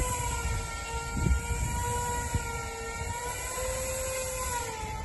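Aircraft tug's motor whining steadily as it tows the helicopter, the whine's pitch wavering slightly, over a low rumble of wheels rolling on the hangar floor with a few light knocks.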